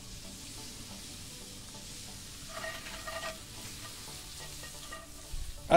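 Chopped vegetables sizzling in a cast-iron pan over charcoal, stirred with a wooden spoon that scrapes the pan.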